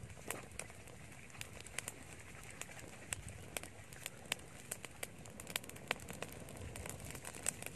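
Wood fire crackling, with irregular sharp pops.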